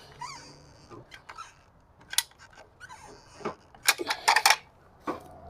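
Several short, sharp scraping clicks, the loudest cluster about four seconds in.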